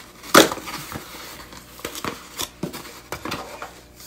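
Small cardboard perfume box being handled and opened: a sharp knock early on, then the flaps and paper inside rustling with scattered light clicks.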